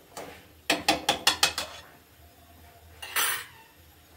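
Spoon knocking against an iron kadhai about six times in quick succession, then a brief scrape about three seconds in. The pan holds sugar and water being stirred for syrup.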